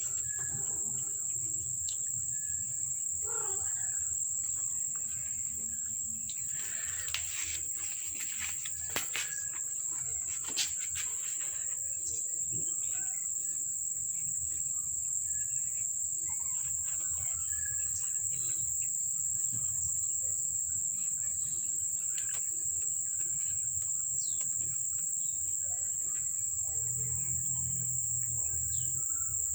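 Crickets chirring in one continuous high-pitched trill, with a few faint scattered clicks and a low steady hum beneath.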